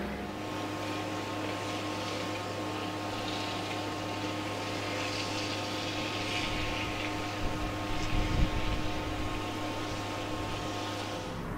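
Steady mechanical hum made of several steady tones, with a hiss that swells in the middle and a few low thumps about eight seconds in.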